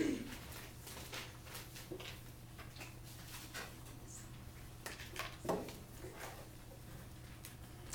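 Sheets of paper being handled and shifted under a document camera, with scattered light rustles and clicks over a steady low hum. Two brief falling squeaks stand out, one at the start and one about halfway through.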